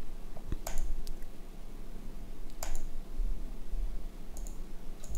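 A handful of sharp, separate computer mouse clicks, spaced irregularly a second or more apart.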